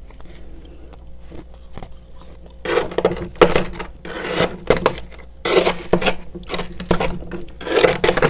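Freezer frost crunching in repeated gritty bursts, in clusters of a few every second or so, starting after a near-quiet opening of about two and a half seconds with a few faint clicks.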